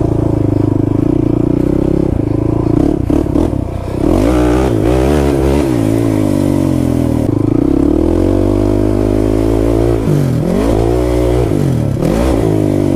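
Kawasaki KFX 450R quad's single-cylinder four-stroke engine running hard under throttle while riding. The pitch drops and climbs again as the throttle is eased and reopened, around three to four seconds in and again about ten seconds in.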